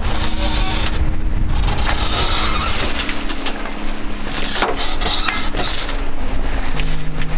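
Wind buffeting the microphone with rushing sea noise aboard a sailing yacht under way, rising and falling in gusts.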